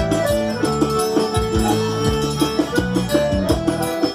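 Live band music led by an accordion, with drum kit and guitar, playing an instrumental passage over a steady beat.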